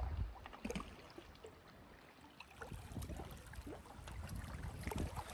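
Small waves lapping and trickling against rocks and pebbles at the water's edge, with many small splashes. A gust of wind rumbles on the microphone right at the start.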